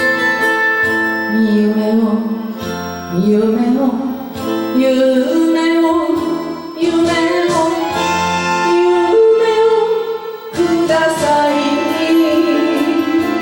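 Enka karaoke backing track playing an instrumental passage, with held and gliding melody lines over guitar and strings.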